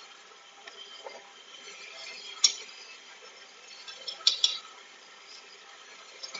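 A metal spoon clinks sharply against the rim of a stand mixer's steel bowl, once about two and a half seconds in and a few times in quick succession past four seconds, as butter is scraped off into it. Underneath, the KitchenAid stand mixer runs at low speed with a faint steady hum.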